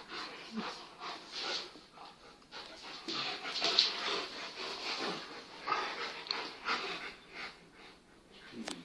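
Two dogs, a Kangal puppy and a smaller Kangal cross, play-fighting: a string of short, irregular play noises, whines and breathy panting as they mouth at each other.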